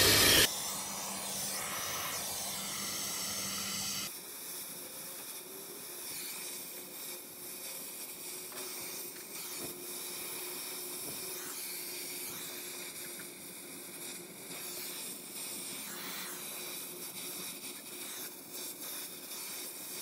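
Oxy-acetylene torch flame hissing steadily as a copper refrigerant line joint is brazed. Loudest right at the start, it settles to a lower, even hiss about four seconds in.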